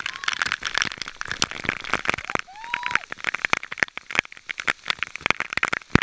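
Waterfall spray pelting the camera at close range: a dense, irregular crackling patter of water drops over the rush of falling water.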